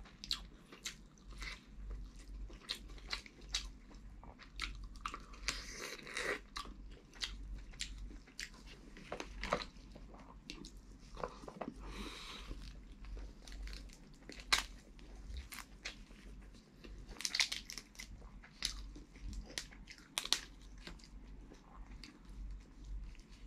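Close-miked eating of boiled crab: irregular sharp cracks and snaps of crab shell being broken apart by hand, mixed with chewing and wet mouth sounds, with longer smacking or sucking noises about six and twelve seconds in.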